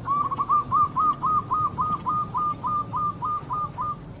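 Zebra dove (perkutut) singing: a quick run of about fifteen short cooing notes, about four a second, each note rising then dropping in pitch, stopping a little before four seconds in.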